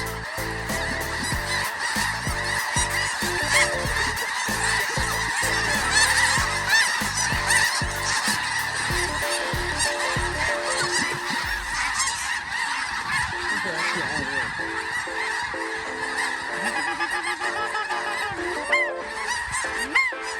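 A large flock of snow geese calling, with many overlapping honks and no break.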